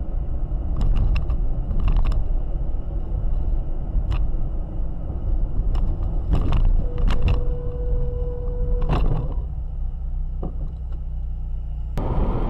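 Dashcam recording of a car driving in city traffic: steady low road and engine rumble with several short sharp clicks and knocks, and a steady tone held for about two seconds in the middle. Near the end the rumble changes abruptly to a louder, harsher road noise.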